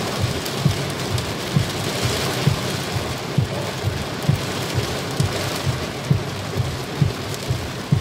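Heavy rain pelting a car's roof and windshield, heard from inside the cabin, with the windshield wipers thudding low and regularly about once a second.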